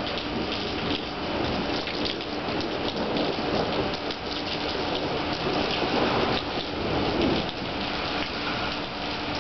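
Heavy rain falling steadily on pavement and the roof overhang, with a low rumble of thunder, the tail of a thunderstorm.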